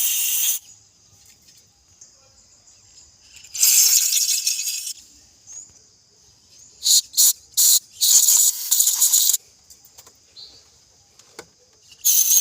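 Aerosol electrical contact cleaner sprayed in short hissing bursts, about five of them, the longest over a second, into corroded connector pins of the ignition coils and sensors.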